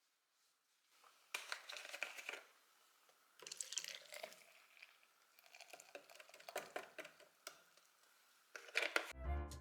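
Several short bouts of crinkling and rustling as something is handled. Near the end a chiming music cue comes in.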